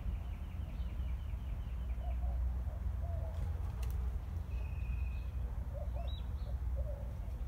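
Birds calling: a rapid run of short high chirps for about two seconds, then a single drawn-out whistle and a few short calls later on, with some lower warbling calls, over a steady low rumble.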